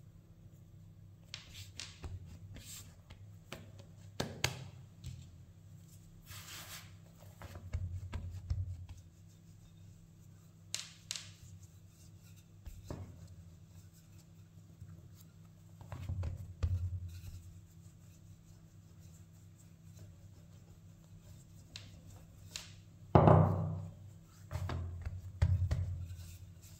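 Hands pinching and sealing a stuffed ball of dough, then a wooden rolling pin rolling it flat on a silicone baking mat: several low rolling rumbles with scattered knocks and clicks, the loudest thump a few seconds before the end.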